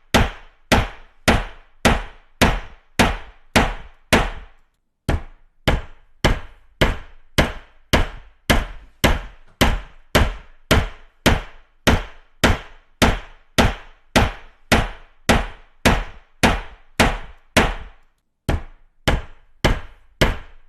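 Hammer striking repeatedly in a steady rhythm of a little under two blows a second, each a sharp knock with a short ringing tail. The strikes pause briefly twice.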